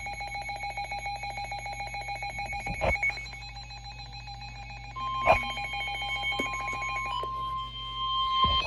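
Weather radio alert alarm: a rapidly pulsing electronic ringing with a couple of sharp clicks. About five seconds in, the steady NOAA warning alarm tone begins that marks a warning broadcast, and the pulsing ringing stops a little over seven seconds in.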